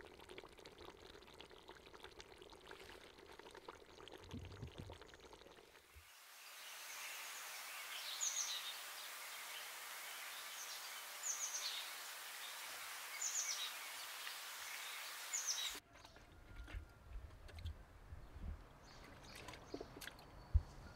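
Outdoor ambience: a steady hiss with a few short bird chirps, spaced a second or two apart, through the middle part. It is framed by quieter stretches of handling noise with soft knocks and one sharp thump near the end.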